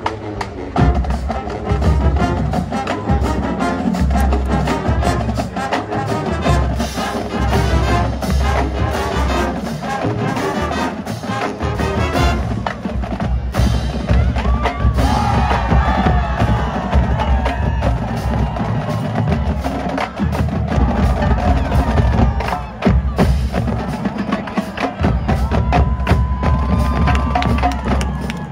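College marching band playing a piece: brass and winds over a drumline, with many sharp percussion hits and a heavy, pulsing low end.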